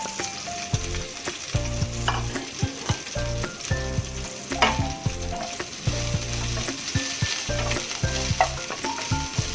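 Vegetable pieces sizzling in hot oil in a pan while being stirred, the spatula clicking and scraping against the pan many times.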